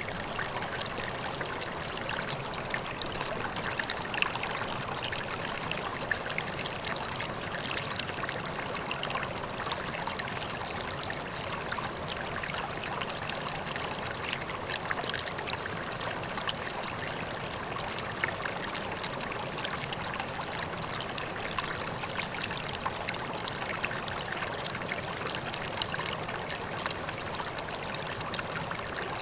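Koi pond water steadily trickling and splashing, an even rush of running water with many small splashes.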